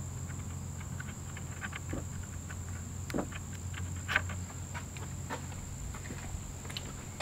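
Small clicks and rustles as fireworks fuse is handled and knotted at a wooden mortar rack, the sharpest about three and four seconds in. Under them run a steady high-pitched insect drone and a low steady hum.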